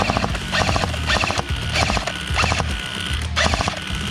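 Airsoft electric gun firing several short full-auto bursts: rapid trains of clicks, each with a thin motor-and-gearbox whine. A low hum runs underneath.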